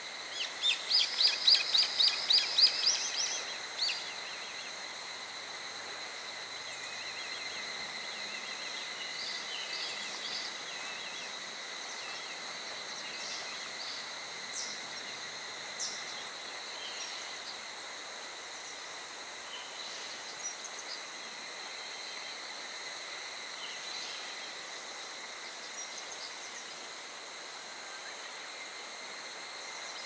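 Steady high-pitched insect drone, with a loud run of rapid repeated calls in the first three seconds and scattered short bird chirps after.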